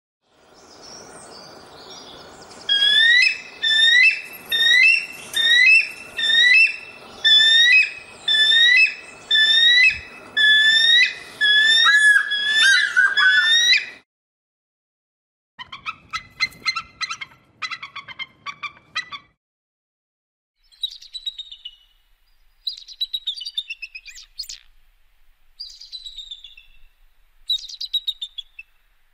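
Eagle calls in three bursts. First comes a series of about a dozen loud, clear calls, roughly two a second, each note hooking up or down in pitch. After a short pause there are about four seconds of fast stuttering chatter, and after another pause a run of thinner, falling whistled notes.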